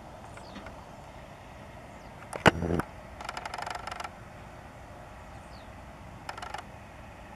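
Boeing 737-700 jet engines at low power during taxi, a steady distant rumble. About two and a half seconds in there is a sharp, loud knock, followed by a short clattering rattle, with a shorter rattle near the end.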